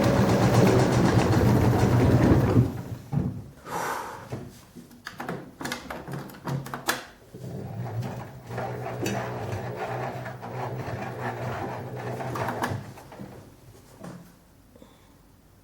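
LG washing machine spinning an unbalanced load: a loud motor hum with a rising whine, which cuts off about two and a half seconds in. The drum then runs down with scattered knocks and clicks and a softer hum that fades out near the end.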